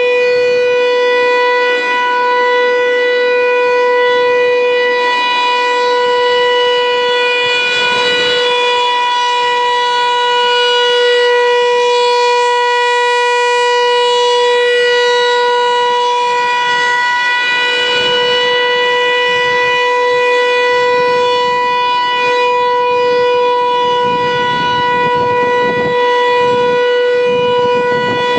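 American Signal T-135 outdoor warning siren sounding loud and continuous on a single steady pitch during a routine siren test.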